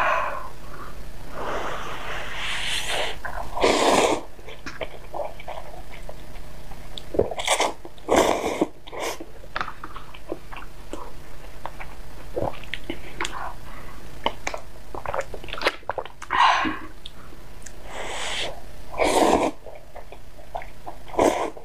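A person eating hot noodles close to the microphone: several loud slurps of about a second each, with chewing and small clicks between.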